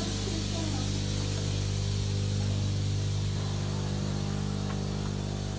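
Steady hiss over a constant low machine hum from the climate-control equipment of a tropical glasshouse.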